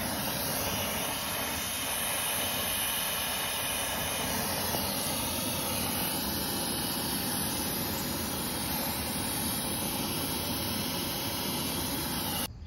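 Steady roar and hiss of a lit brazing torch flame, running unchanged and cutting off suddenly near the end.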